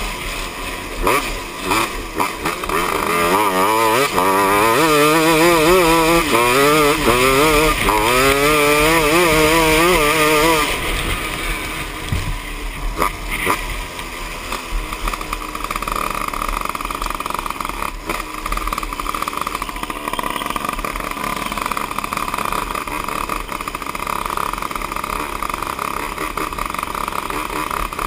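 250 cc two-stroke grass-kart engine under race load, its pitch rising and falling over and over with the throttle for about the first ten seconds. Then the engine note turns fainter and steadier under a constant rushing noise.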